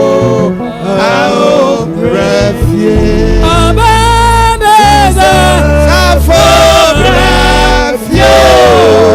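Gospel song with voices singing a wavering melody over a steady bass line, the bass growing heavier about three seconds in.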